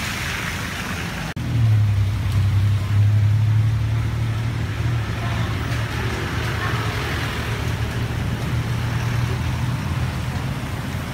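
Road traffic on a wet city street, with a motor vehicle's engine running close by as a steady low hum. The hum starts about a second and a half in, after a brief dropout.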